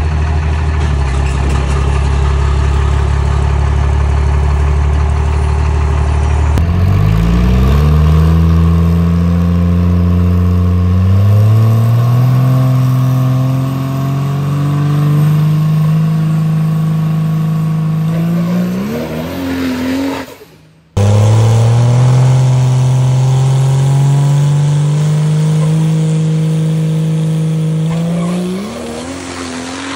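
Cummins diesel engine of a pro street drag truck running steadily and low, then revving up under load in stages, its pitch climbing and levelling off more than once with a steep rise at the end of each pull. It cuts off abruptly about two-thirds through, then comes back on another pull that climbs again and rises sharply near the end.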